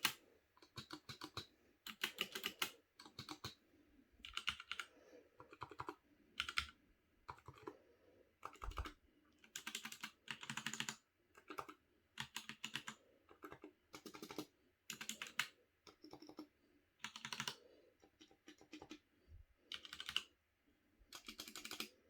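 Keys typed in short bursts on two linear-switch gaming keyboards being compared: a HyperX Alloy FPS Pro with Cherry MX Red switches and a Razer Huntsman Mini with red linear optical switches.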